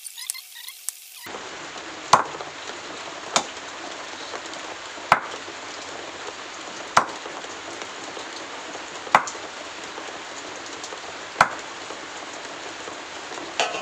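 A machete-style chopper striking through chicken pieces onto a wooden board: seven sharp chops, about one every one and a half to two seconds, over a steady hiss that sets in about a second in.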